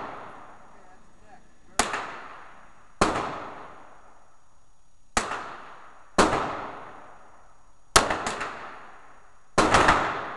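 9mm pistol shots in an indoor range, each followed by a long echoing tail. Single shots come a second or two apart, then two quick groups of two or three shots near the end.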